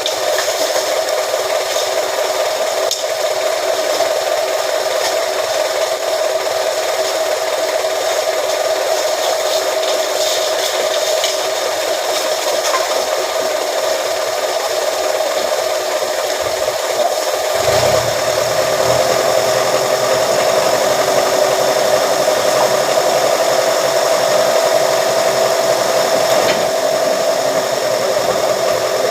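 A metal press machine's motor running steadily with a constant whine and hiss. About two-thirds of the way in, a deeper hum joins and it gets slightly louder.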